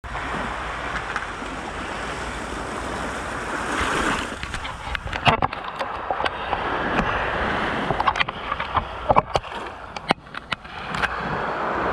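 Waves washing against a sandbag seawall, a steady rush of surf and wind. From about five seconds in, a hand fumbling with the camera close to the microphone adds a string of sharp knocks and rubbing clicks.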